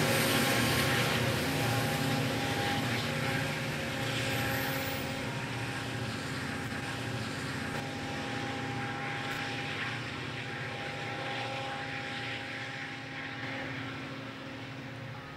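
Helper set of four EMD SD40-2 diesel locomotives, 16-cylinder 645 engines working hard as they shove a loaded coal train upgrade, their steady drone fading away as they pull off.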